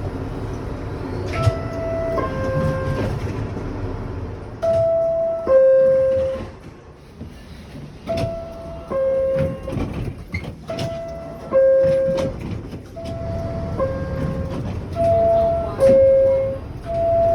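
High-pitched two-note subway car door chime, a higher tone falling to a lower one, sounding about six times in a row over the rumble of the train. This is the warning that the doors are about to close.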